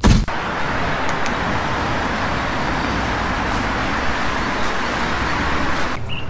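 Steady rushing road noise from a vehicle on the move, opening with a loud thump and cutting off abruptly about six seconds in.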